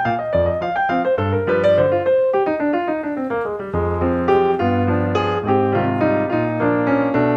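Background piano music: a flowing melody over sustained low notes.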